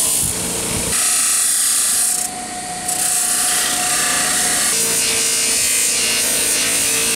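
A bench buffer spinning a 6-inch abrasive sanding wheel, with the steel of a pair of pliers pressed against it to polish around the rivet: a loud grinding hiss over the motor's steady whine. The pitch and level shift a few times.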